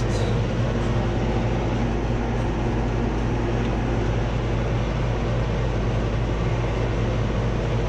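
Steady drone of an air conditioner's indoor air handler running: a blower's airflow rush with an even motor hum underneath, unchanging throughout.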